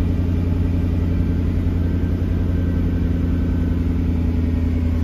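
2005 Ford GT's supercharged 5.4-litre V8 idling steadily just after a cold start, heard from inside the cabin.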